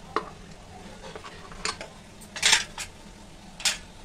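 Light metallic clinks and scrapes as an aluminium idli mould plate is handled and its cups are greased with oil: four short clinks, the loudest about two and a half seconds in.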